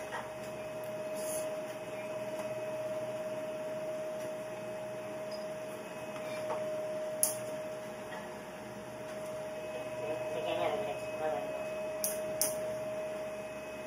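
Steady machinery hum aboard a ship with a constant high whine over it, heard from inside the wheelhouse behind glass. A few sharp clicks, three of them, and faint voices briefly about ten seconds in.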